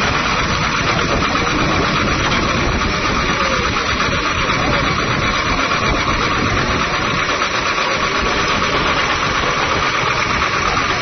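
An engine running steadily at an even pace, with a fast, regular rattle in its sound.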